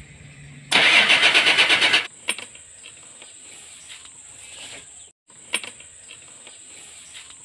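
Starter cranking the Nissan Condor truck's diesel engine in one burst of about a second and a half, with a fast rhythmic chug, stopping abruptly without the engine catching.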